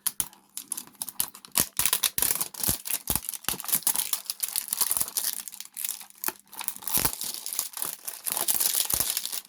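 Packaging being handled close up: plastic wrap and cardboard crinkling and tearing, with many small clicks and knocks.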